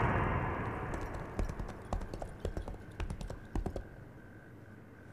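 Horse's hooves clip-clopping and growing fainter, a scatter of sharp clops that stop about four seconds in.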